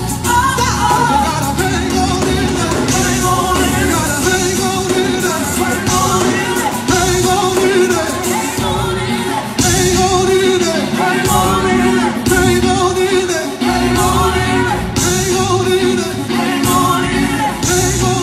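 Live band with singers performing a song, amplified through the hall's sound system.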